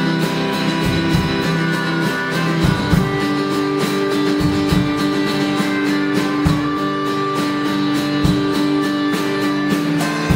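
Live blues shuffle instrumental: an amplified harmonica plays long held notes over an electric guitar, with drums keeping a steady beat.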